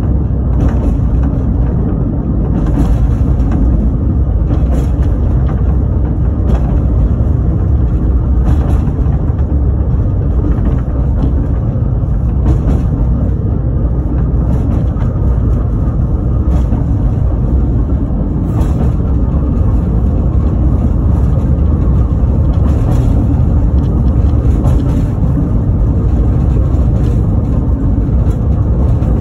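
Narrow-gauge train carriage rolling along the track, heard from its open rear platform: a steady rumble of wheels on rail with a faint click about every two seconds.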